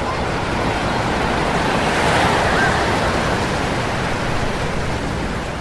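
Ocean surf washing ashore: a wave swells to its loudest about two seconds in, then slowly recedes.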